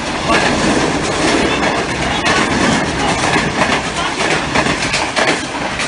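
Pakistan Railways Green Line Express passenger coaches passing at speed close by, their wheels clattering over the rail joints in a rapid run of clicks under a loud rushing noise.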